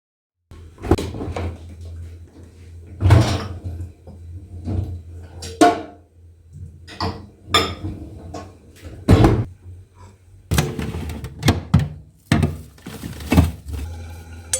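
Dishes and kitchen utensils being handled, set down and moved: about ten separate knocks and clinks over a low steady hum.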